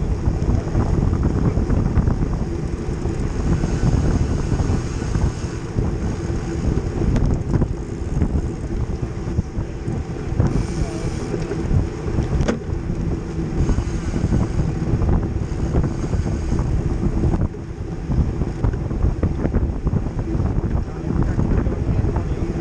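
Wind buffeting the microphone of a camera mounted on a racing bicycle at speed, over a steady rumble of tyres rolling on asphalt.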